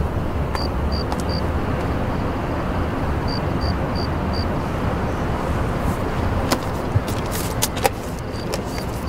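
Steady outdoor city ambience with a low rumble and faint high chirps that repeat in short runs of three or four. From about six and a half seconds in, sharp clicks and rustling as plastic bottles are handled in a car's boot.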